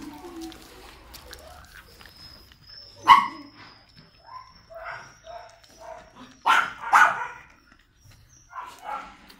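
Dog barking in short single barks: a loud one about three seconds in, a run of smaller, softer ones, two loud barks close together around seven seconds, and a few more near the end.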